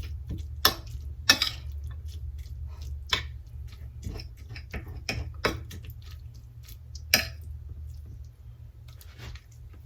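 Eating from a bowl: a utensil clicking and scraping against the bowl in irregular, sharp clicks, with soft chewing, over a steady low hum.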